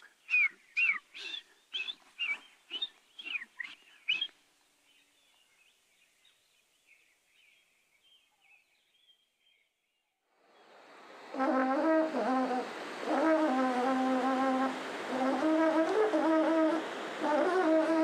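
A man imitating birds with his voice: a quick run of about a dozen sharp chirps over roughly four seconds. After a near-quiet stretch, a steady rushing noise rises about ten seconds in. Over it a buzzy, horn-like melody moves between a few stepped notes to the end.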